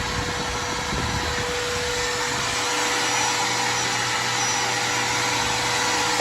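Vacuum cleaner running steadily: a constant rushing of air with a steady motor whine, and a low hum coming in about halfway through.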